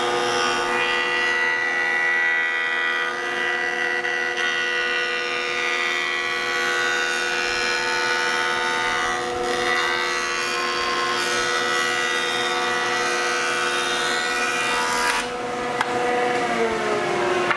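Jointer running with its cutterhead planing a board flat, a steady machine whine over cutting noise. Near the end the cutting noise stops abruptly and some of the motor's tones fall in pitch as it spins down.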